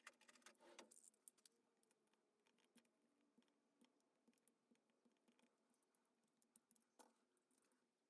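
Near silence, with faint scattered clicks and light taps of small metal parts and pliers being handled against an engine's crankcase: a cluster in the first second and a sharper click about seven seconds in.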